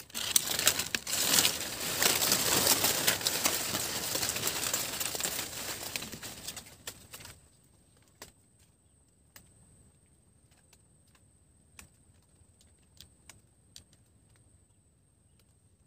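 Loud rustling handling noise with many sharp clicks, which cuts off suddenly after about seven seconds. Then comes a faint steady high-pitched whine with scattered soft ticks.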